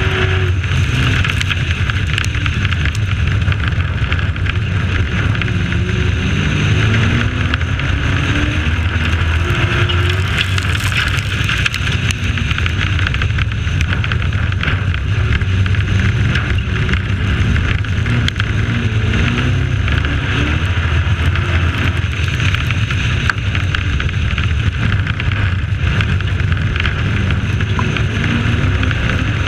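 Dirt-track race truck's engine running hard, heard from its own onboard camera, its pitch climbing and dropping again and again as it accelerates down the straights and lifts for the turns. Under it is a steady rush of wind and road noise.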